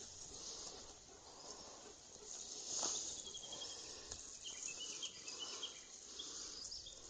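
Small songbirds chirping and twittering in short, high-pitched bursts, with a brief rustle about three seconds in.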